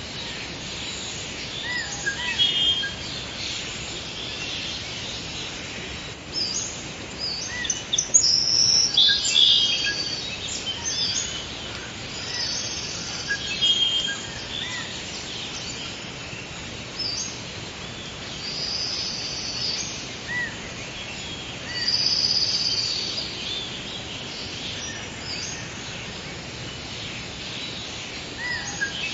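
Forest ambience: several birds calling and singing in short high chirps and phrases over a steady background hiss, with louder bouts of song a third of the way in and again later.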